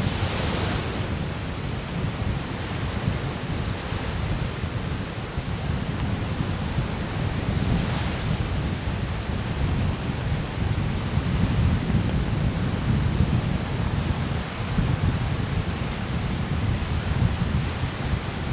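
Wind buffeting the microphone in a gusting low rumble, over waves washing onto the Lake Michigan shore, with a brief louder hiss of surf near the start and again about eight seconds in.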